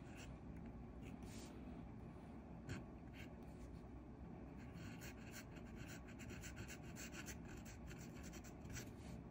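Extra-fine Jowo #6 steel fountain pen nib on an Esterbrook Estie writing cursive on paper: a run of faint, short scratching strokes, coming thicker in the second half.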